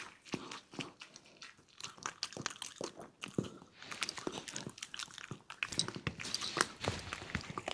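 A dog eating, crunching and chewing its food in quick, irregular bites.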